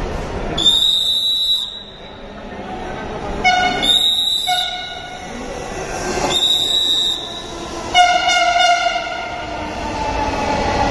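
Dhaka Metro Rail train at a station platform. Three high-pitched tones, each about a second long and about three seconds apart, sound over the train's steady rumble, with a lower pulsing tone twice, the second near the end.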